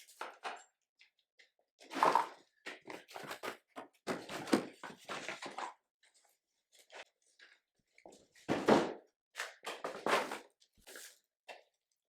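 Irregular knocks, thunks and crinkling rustles of snowblower parts and packaging being handled during unboxing, the loudest about two thirds through.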